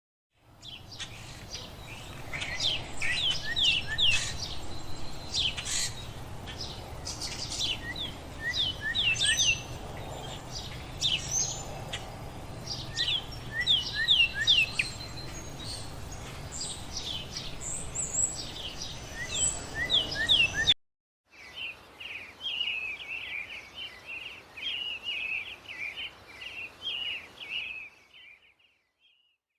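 Birds chirping in many short, sharp downward-sweeping notes over a low background hiss. About two-thirds of the way through this cuts off abruptly and gives way to a fast, continuous twittering, which stops shortly before the end.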